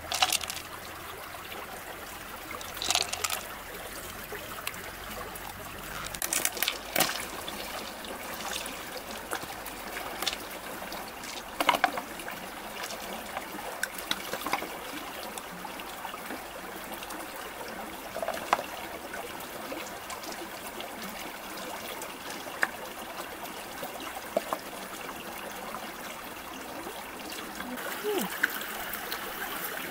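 Shallow stream trickling steadily over rocks, with scattered sharp clicks and knocks as freshwater pearl mussel shells and pearls are handled, the loudest about twelve seconds in.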